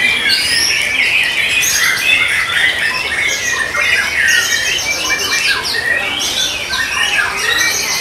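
White-rumped shamas (murai batu) singing loudly and without pause: a dense, overlapping stream of quick whistled and chattering phrases that glide up and down, as from several caged birds singing at once.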